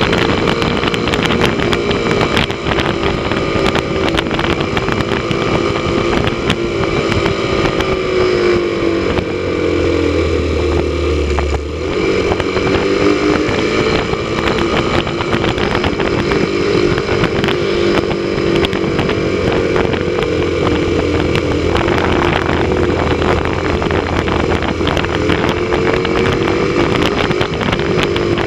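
Motorcycle engine running at road speed with wind rush on the microphone. The engine note falls as the bike slows about nine seconds in, then climbs again as it speeds back up.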